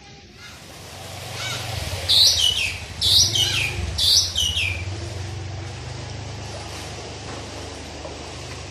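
Motorbike engine running with a steady low hum while riding through floodwater. About two, three and four seconds in, three loud high chirps sound over it, each falling in pitch.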